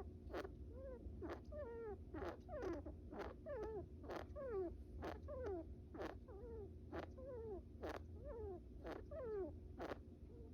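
Pet brown rat snoring in its sleep. It makes a regular cycle, about once a second, of a short sharp click and then a squeaky little whistle that falls in pitch.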